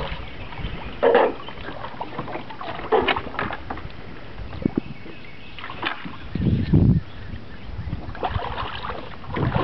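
Water sloshing around a small fishing boat with wind on the microphone, broken by a few brief louder sounds about a second in, near three seconds and around six and a half seconds.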